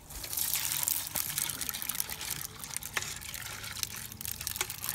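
Cold water trickling and splashing as rock bass fillets are put in it, with a few sharp clicks.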